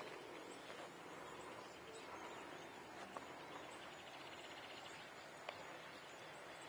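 Faint outdoor ambience on hilly scrubland: a steady hiss with scattered faint high chirps and a short rapid trill about three and a half seconds in, plus a couple of light clicks.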